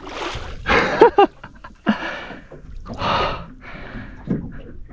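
A man panting and breathing hard, out of breath after a long fight with a giant trevally, with a short voiced exclamation about a second in and then several heavy breaths about a second apart.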